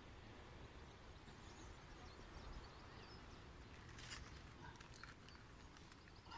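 Near silence: faint outdoor background with a low rumble, a few faint bird chirps, and a brief rustle about four seconds in.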